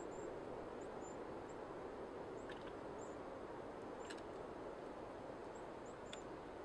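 Campfire burning with a few sharp crackles and pops, over a steady low rush. Thin, high, short chirps of a small bird repeat throughout.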